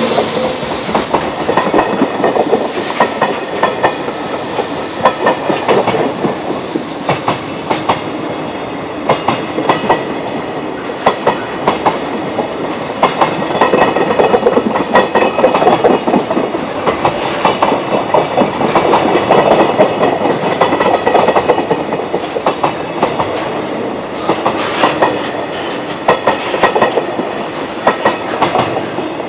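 A long freight train passing over rail joints: steady running noise with repeated clusters of sharp clacks as each set of wheels crosses the joints.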